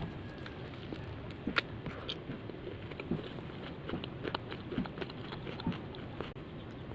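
Soft scattered clicks and crunches of someone chewing food between bites, with one sharper click about a second and a half in.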